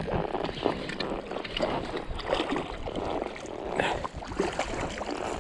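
Water splashing and lapping close by in small, irregular splashes.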